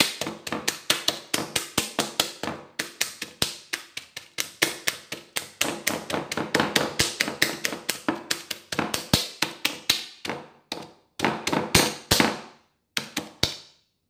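Fork tines stabbing repeatedly through the plastic film lid of a ready-meal lasagne tray: a rapid run of sharp taps, several a second, that stops about a second and a half before the end after one last tap.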